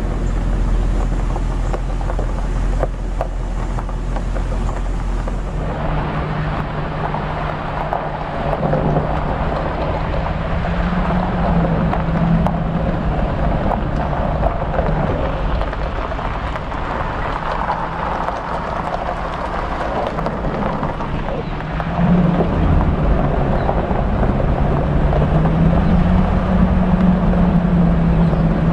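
Truck engine running at low speed on a gravel road, with tyre noise. The engine note rises as it speeds up, once about eleven seconds in and again near the end. The first few seconds are mostly wind rumbling on the microphone.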